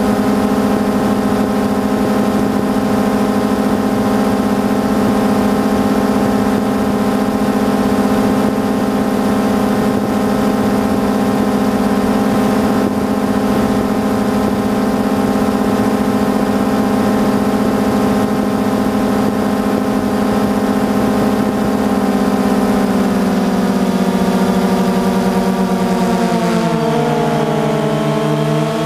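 DJI Phantom 2 quadcopter's electric motors and propellers humming at a steady pitch, then winding down with a stepwise falling pitch over the last several seconds as the motors slow.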